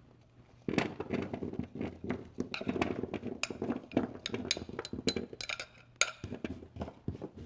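Butternut squash cubes being spread on a metal baking sheet, a utensil clinking and scraping against the pan. A quick, uneven run of clicks and knocks starts about a second in.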